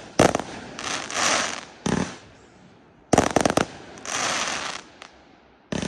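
Aerial fireworks bursting: quick volleys of sharp bangs every couple of seconds, with a hissing crackle filling the gaps between them.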